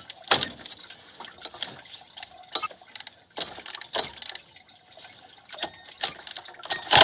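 A wrench working the bolts of a Mercedes M112 V6's water pump pulley loose: scattered metallic clicks and knocks at irregular intervals.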